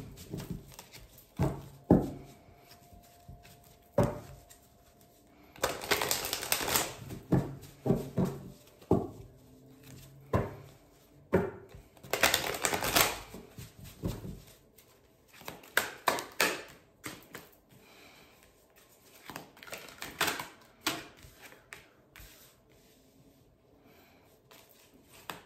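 A deck of tarot cards being shuffled by hand: two bursts of rapid card flicking, one about six seconds in and one about twelve seconds in, with a few single sharp clicks and softer card ticks in between.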